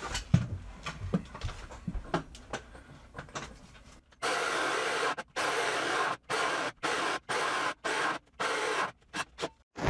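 A few light knocks and handling sounds, then a cordless drill fitted with a hole saw runs in repeated short stop-start bursts, drilling a pilot hole through the house's outside wall.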